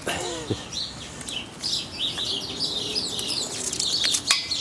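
Small birds chirping, many quick high chirps starting about a second and a half in. There is a brief cry that falls in pitch at the very start.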